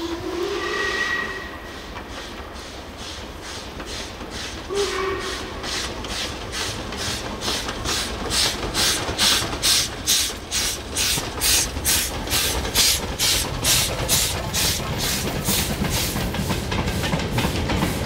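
LMS Stanier 8F 2-8-0 steam locomotive hauling a goods train. Its whistle gives a blast of about a second and a half, then a short toot about five seconds in. Its exhaust then chuffs about three times a second, loudest as the engine passes close, and the wagons rumble by near the end.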